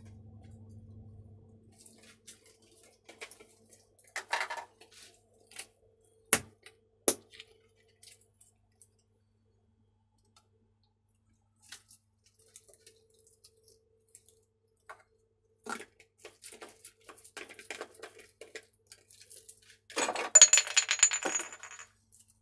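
Scattered clinks and knocks of metal cookware and utensils around woks, with a denser, louder clatter near the end.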